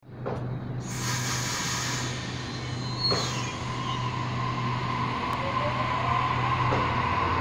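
Sydney Trains Waratah Series 2 B-set electric double-deck train pulling away from the platform. Its running noise carries whining tones that climb slowly as it gathers speed. Two short sharp knocks come near the start and about three seconds in.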